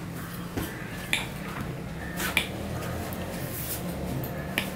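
A metal fork clinking several times against a china plate while picking up mango pieces, with soft chewing sounds in between, over a steady low hum.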